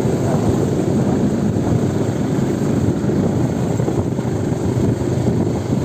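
Motorcycle riding along at a steady speed: a continuous engine drone mixed with road noise.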